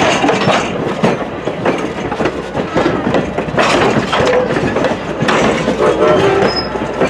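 Wooden passenger coaches of a steam-hauled train rolling past close by, their wheels clicking over the rail joints. A few short squeals from the wheels come in the second half.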